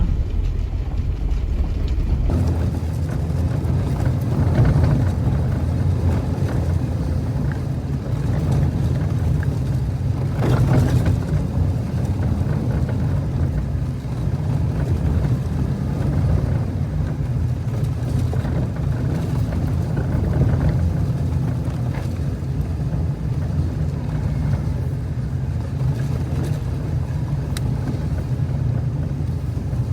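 Jeep Wrangler driving slowly on a dirt off-road trail: a steady low engine and drivetrain rumble with tyre and rough-road noise, and a brief clatter about ten seconds in.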